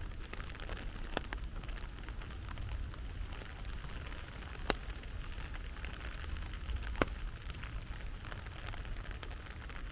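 Heavy rain falling, a steady dense patter. Three sharp single taps stand out, about a second in, near the middle and about two-thirds of the way through.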